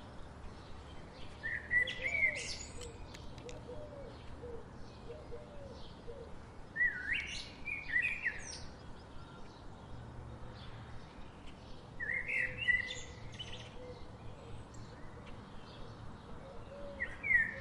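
A songbird singing a short, swooping phrase about every five seconds, four times, with other birds chirping faintly between phrases.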